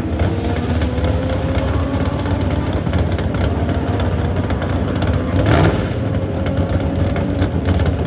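Single-turbo BMW 135i inline-six accelerating hard down a drag strip, its engine note climbing slowly. There is a brief louder burst about five and a half seconds in.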